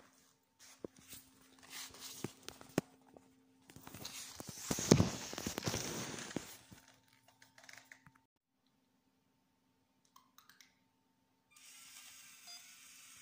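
Scattered clicks and rustling from a hand-held camera being moved, loudest in a burst of rustling and sharp clicks around the fifth second. A faint steady whir comes in near the end.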